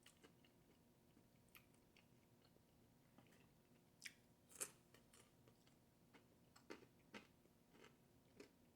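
Faint close-up chewing: scattered soft mouth clicks and smacks, the clearest about four and a half seconds in.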